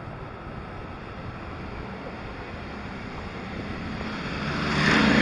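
Wind rushing over the microphone and road noise from a moving Honda Goldwing motorcycle. The wind and engine sound grow louder near the end.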